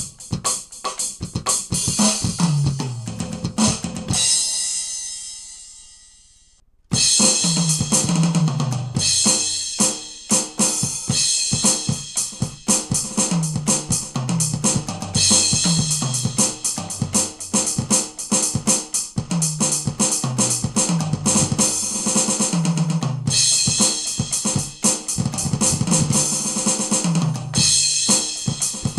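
Aroma TDX-21 electronic drum kit played through its sound module: kick, snare, cymbals and tom runs that fall in pitch. About 4 s in the playing stops and the last hits ring out and fade. About 7 s in it starts again on a different preset kit, the Samba Kit, and keeps up a steady beat with repeated descending tom fills.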